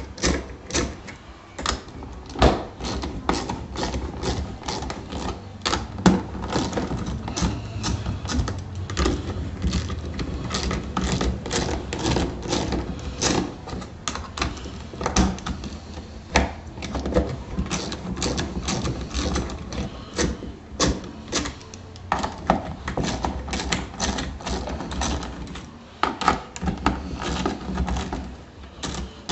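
A wrench working the lock nuts off an HHO dry cell's end-plate bolts: a long run of sharp, irregular metal clicks and clinks, several a second with short pauses, over a low steady hum.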